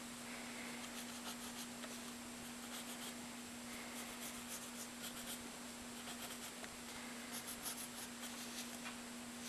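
Pencil lead scratching faintly across sketchbook paper in short, uneven strokes, over a steady low hum.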